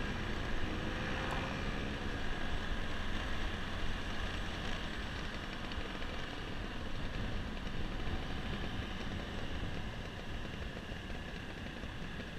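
Small Honda scooter's engine running at a steady cruising speed, heard from its own handlebars, mixed with wind and road noise rushing over the microphone.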